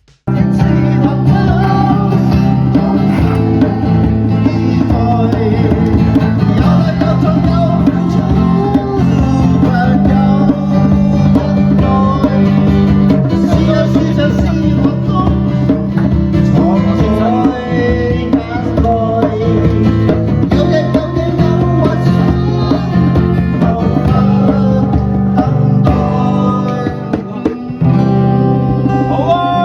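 Band music led by guitar over a steady heavy bass line, an instrumental stretch without lyrics; it starts abruptly just after a moment of near silence.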